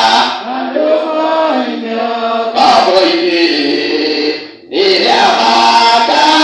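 Voices singing a church hymn together, holding long notes, with a brief break between phrases about four and a half seconds in.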